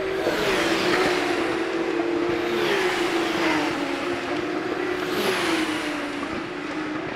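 Porsche 911 GT3 Cup (992) race cars with 4.0-litre flat-six engines passing one after another. Three passes, each a rising rush that falls away. The engine note drops in steps as they brake and downshift for the corner.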